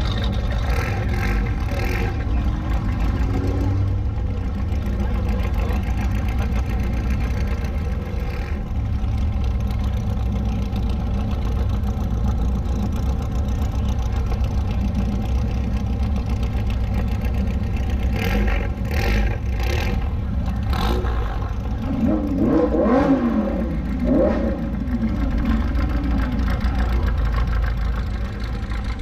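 Lamborghini Huracán's V10 engine running at a slow cruise, a steady low drone, then blipped in a few quick revs near the end, the pitch rising and falling sharply each time. A few brief clattering clicks come in early on and in the second half.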